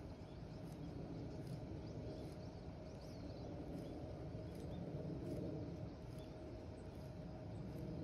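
Spinning reel being cranked at a slow, steady pace on a lure retrieve: a soft steady whir with faint regular ticks about every three-quarters of a second. Faint small bird chirps now and then.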